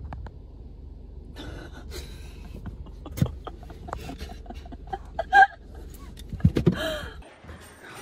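Low hum inside a parked car, with scattered clicks and handling noises and a sharp knock about five and a half seconds in; the hum cuts off suddenly about seven seconds in.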